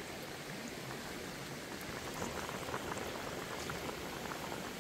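Pot of chicken curry bubbling as it simmers, with many small pops over a steady hiss.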